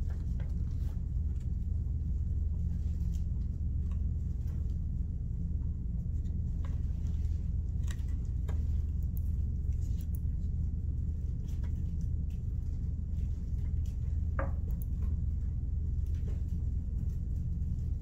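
Steady low background hum, with faint scattered clicks and rustles of paper and craft pieces being handled, one sharper tick about two-thirds of the way through.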